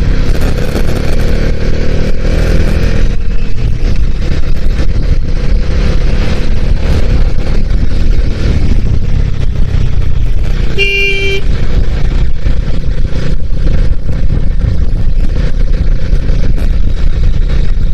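Bajaj Dominar motorcycle running at road speed, with heavy wind rushing over the microphone. A vehicle horn honks once, briefly, about eleven seconds in.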